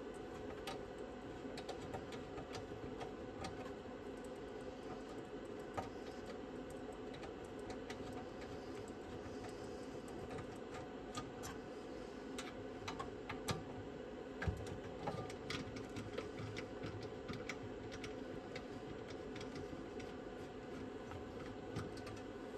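Small scattered clicks and ticks of a hand screwdriver turning screws out of a metal plate inside a Victor TD-V721 cassette deck, with occasional light knocks of the parts, over a steady low background hum.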